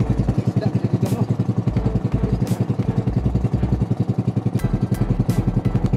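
A boat's engine running steadily at close range, a fast, even putt-putt pulse, with a few short sharp hits on top.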